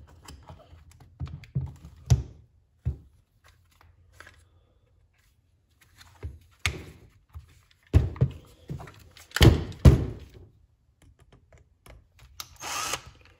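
Hard plastic knocks and clatter as a HART cordless impact driver's housing is handled and pulled apart on a bench, with a run of louder knocks in the middle and a short rasp near the end.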